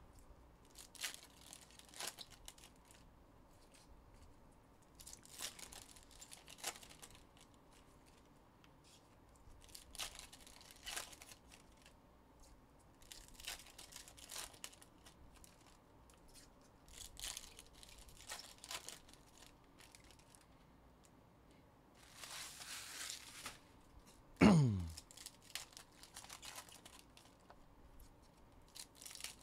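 Trading-card pack wrappers being torn open and crinkled, in short rustling bursts every second or two. About 24 seconds in, a brief, loud sound drops quickly in pitch.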